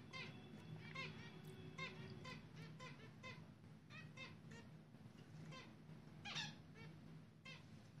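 Zebra finches at the nest giving short, nasal calls over and over, about one or two a second, with one louder, longer call near the end; a faint steady hum runs underneath.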